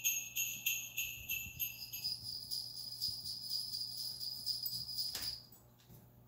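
Jingle-bell ringing pulsing about three times a second, shifting to a higher ringing about two seconds in and stopping a little after five seconds.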